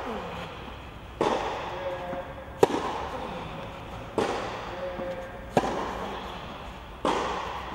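Tennis rally on a clay court: a racket strikes the ball about every 1.4 seconds, sharp close hits alternating with duller impacts, each ringing on in the echo of a covered hall.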